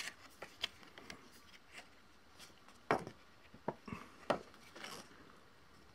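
Handling noise of a folded strip of thin cardboard art cards being unfolded: scattered soft clicks and taps of card, the sharpest about three and four seconds in, with light rubbing of card near the end.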